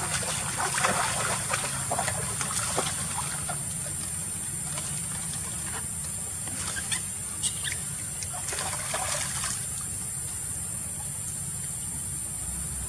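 Water splashing as macaques scuffle in shallow water: a patter of quick splashes in the first few seconds and another cluster around seven to nine seconds in, over a steady high hiss.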